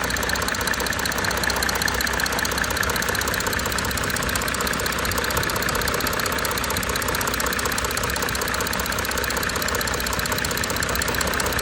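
Audi A4 3.0-litre 200 kW V6 TDI diesel engine idling steadily, with an even knocking clatter.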